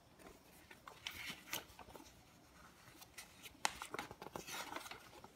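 Faint rustling and crinkling of a paper instruction booklet being handled and its pages leafed through, with scattered light clicks and taps.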